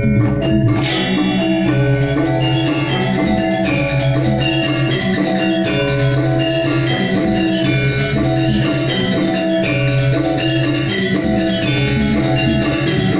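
Balinese gong gede gamelan ensemble playing in the seven-tone saih pitu tuning: bronze metallophones striking a dense, constantly moving melody over held low tones, with a bright metallic stroke under a second in.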